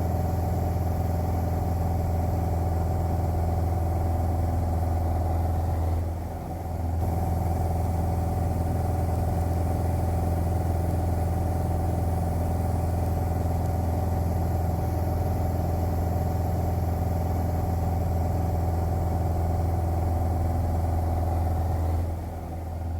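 Piper PA-28 Archer's four-cylinder engine and propeller droning steadily at cruise power, heard from inside the cabin. The drone dips briefly about six seconds in and again near the end.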